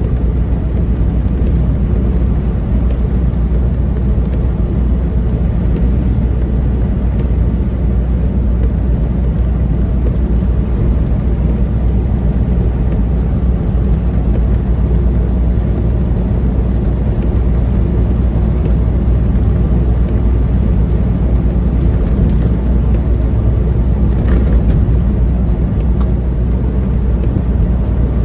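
Semi truck's diesel engine and tyre noise at steady highway cruise, heard from inside the cab as a constant low drone.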